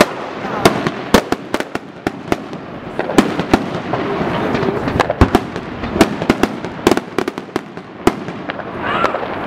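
Many fireworks going off at once: irregular sharp bangs and cracks in quick succession over a constant crackle, with a whistling rocket rising near the end.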